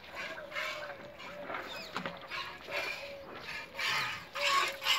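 Milk squirting from a cow's teats into a steel pail during hand milking: a rhythmic hiss of about two to three squirts a second, louder near the end.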